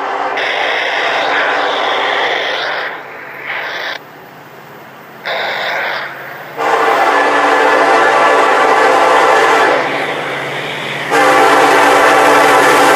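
Nathan Airchime K5LA five-chime horn on an EMD SD70ACe locomotive sounding a series of blasts as the train approaches: a long blast, two short ones, then longer blasts that grow louder as the locomotive nears.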